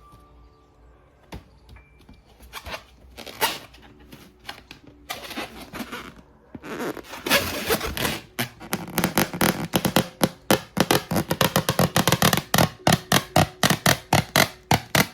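Cartoon-style pooping sound effect: scattered clicks and scrapes at first, then from about halfway a loud, fast train of sputtering pulses, several a second.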